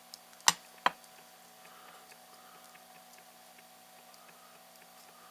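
Two sharp snips of hand cutters, a bit under half a second apart, cutting through the metal strips that join the battery pack's lithium-ion cells, followed by a few faint light ticks.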